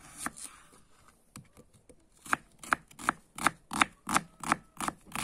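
Kitchen knife slicing a peeled onion on a wooden cutting board: a few soft, uneven cuts, then about two seconds in a steady run of sharp knocks, nearly three a second, as the blade meets the board.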